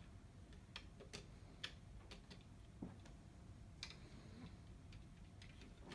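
Faint, irregular clicks and taps of plastic LEGO pieces being handled and pressed together, several scattered through the few seconds with no steady rhythm.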